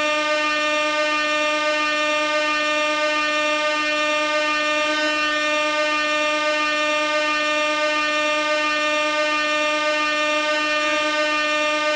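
Gas-powered air horn sounding one continuous, unbroken blast at a single steady pitch.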